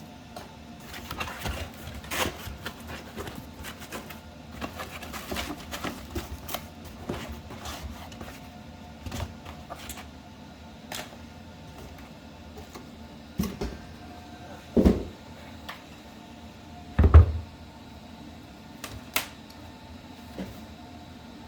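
Boxes and packing material being handled and opened: scattered clicks, taps and rustles, with two heavier thumps about two-thirds of the way through, the second the loudest.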